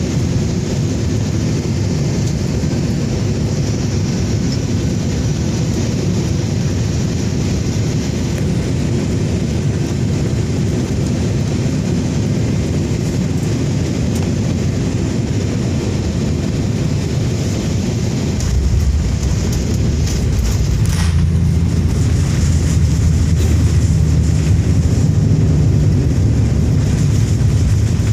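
Airliner cabin noise: the steady rumble of the engines and rushing air. About two-thirds of the way through it gets louder, with a heavier low rumble.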